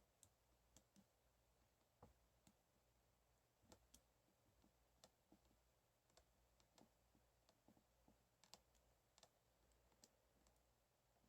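Faint, irregular small metallic clicks of a Sparrows short pick working the pins of a four-pin gun lock under tension from a tension wrench.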